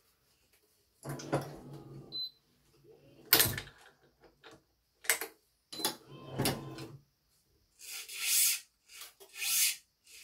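Badminton racket being strung with BG80 string: two short buzzes about a second long, several sharp clicks of the stringing tools, and near the end two hissing swishes as string is drawn through.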